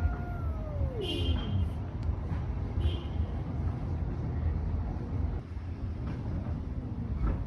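A cat's drawn-out fighting yowl, falling in pitch and dying away about a second and a half in, over a steady low rumble.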